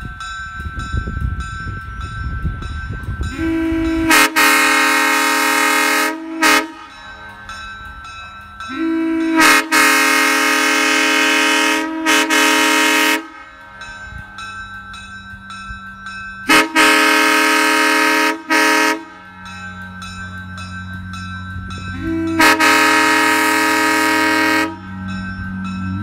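Nathan Airchime M3 three-chime train horn blown on 120 psi air, sounding a chord of steady notes in four long blasts of about two to three seconds each. Three of the blasts are followed by a quick short toot. The horn's bells were left unmachined, and it keeps a worn-in-service sound.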